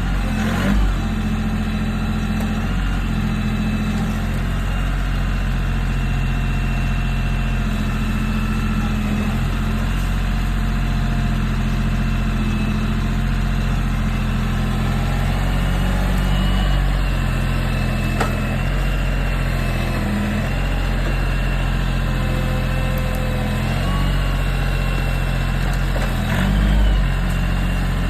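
Kioti CK3510 compact tractor's diesel engine running steadily under load as it digs in and pulls with the grapple, its note swelling a little a couple of times, most clearly near the end.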